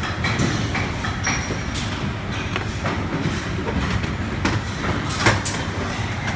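Steady mechanical rumble of workshop machinery, with irregular clicks and knocks from parts and wires being handled, the sharpest about five seconds in.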